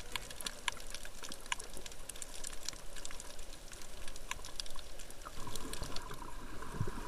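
Water sloshing as heard by an underwater camera, with many small crackling clicks scattered through it. A higher hiss joins a little after five seconds in.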